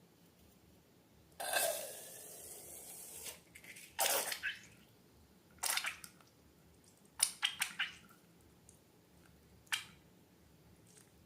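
Wet slime-making sounds: a two-second liquid hiss about a second and a half in, then a handful of short sticky squelches and drips.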